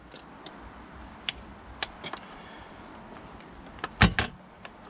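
Hand tools working on spark plugs: a few sharp clicks and knocks of a socket and wrench against the engine. The loudest knock comes about four seconds in, with a smaller one just after.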